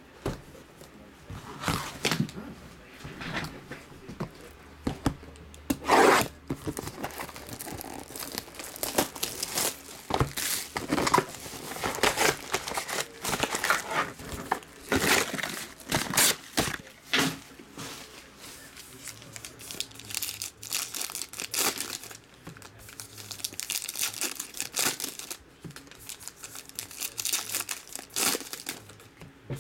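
Foil-wrapped baseball card packs and their cardboard hobby box being handled and torn open by hand. The sound is irregular tearing and crinkling of foil wrappers, with the sharpest rips about 6 and 15 seconds in.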